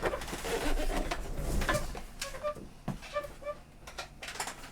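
Objects being shifted around on a workbench, giving scattered clicks, knocks and light scraping.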